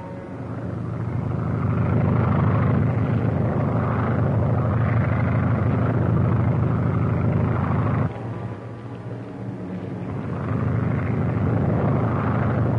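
Propeller plane's engine droning steadily, swelling in over the first two seconds. It drops suddenly to a quieter drone about eight seconds in, then swells back up near the end.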